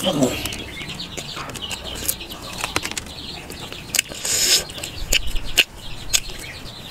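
Crisp fried puri crackling and tearing as it is crushed and broken by hand, with scattered sharp crackles and a short rustling burst about four seconds in. A brief falling vocal sound comes at the very start.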